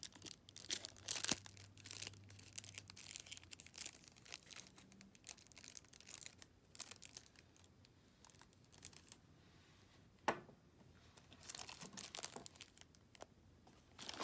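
Faint crinkling and rustling of a clear plastic sleeve as a pair of sunglasses is handled and slid out of it, in irregular short bursts with a quieter stretch in the middle and a single sharp tap about ten seconds in.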